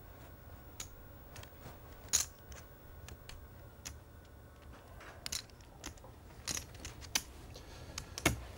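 Scattered sharp clicks of poker chips being handled at the table, irregular and spaced a fraction of a second to a second apart, over a low steady room hum.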